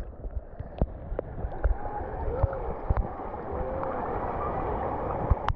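Shallow river rapids rushing and gurgling close to the water surface, with scattered small knocks and splashes.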